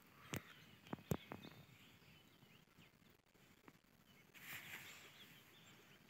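Near-silent outdoor ambience with a few short clicks in the first second and a half and one more in the middle, and a faint rustling swell about four and a half seconds in.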